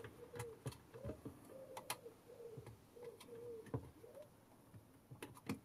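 Small metallic clicks and taps of a screwdriver and fingers working the grub screws of a Krasnogorsk-1 16mm camera's film roller. A pigeon coos faintly in the background, a run of short low calls.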